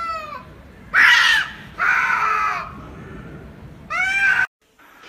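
Two cats yowling and screeching at each other in a fight: a run of drawn-out, wavering cries, the loudest about a second in. The sound cuts off suddenly near the end.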